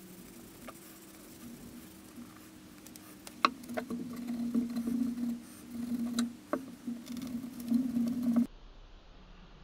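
A cloth rag rubbing and buffing the steel blade of a handmade cleaver, with a few light clicks as the knife knocks against the bench, over a low steady hum. The rubbing grows louder and rougher from about halfway, then the sound cuts off suddenly near the end.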